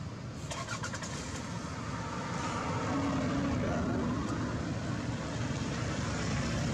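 A road vehicle's engine and traffic noise, a steady low rumble that grows louder about two seconds in.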